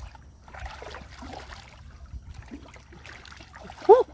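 Shallow muddy water sloshing and trickling as hands and legs move through a flooded rice paddy, over a low rumble. Right at the end comes one short loud cry.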